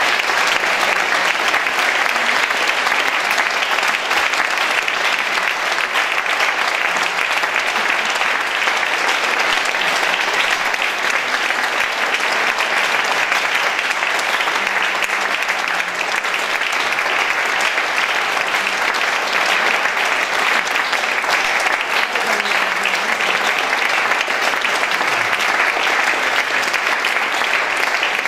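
Audience applauding, many hands clapping at once in a dense, steady stream that holds at the same level throughout.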